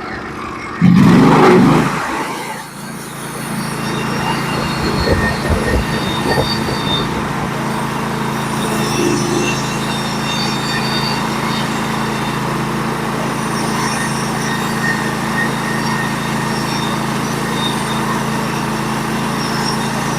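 Portable band sawmill running. A loud surge about a second in gives way to a steady engine drone with a thin high squeal over it.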